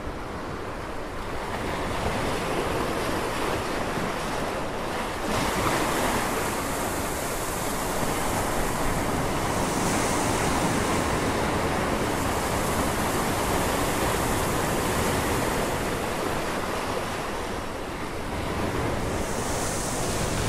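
Ocean surf washing onto a beach: a steady rushing noise that swells and eases gently.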